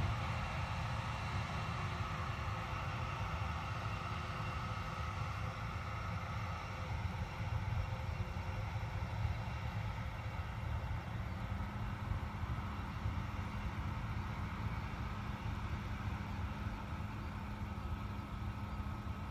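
ANA Airbus A320-family jet airliner's engines running as it rolls away along the runway: a steady low rumble with a high whine that fades about seven seconds in, and a low steady tone that comes in about twelve seconds in.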